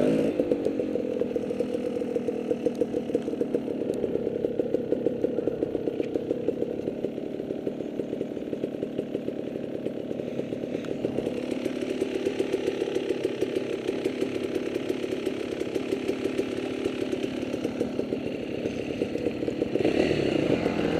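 Off-road motorcycle engine running at low, fairly steady revs, its exhaust beats making a fast even pulse.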